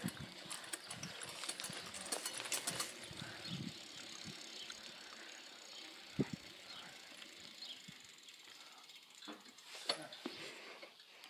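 Bicycle rolling over concrete: the bike rattles and its freewheel clicks, most busily in the first few seconds, with a single knock about six seconds in and a few more knocks near the end.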